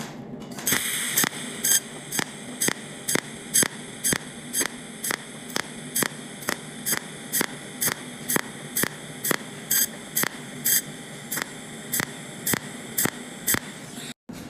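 Cold welding machine's pulsed arc zapping about twice a second over a steady electrical hum, each pulse fusing one spot as filler wire is fed in to repair a seam at low pulse current.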